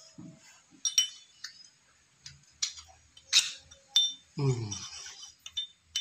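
Machined brass connector parts clinking and tapping against each other as they are fitted together by hand: several sharp metallic clinks, the loudest about halfway through ringing briefly.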